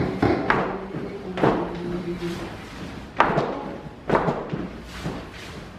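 A group of dancers stamping their feet together on a hard floor, one sharp thud about every second, with a short gap near the middle.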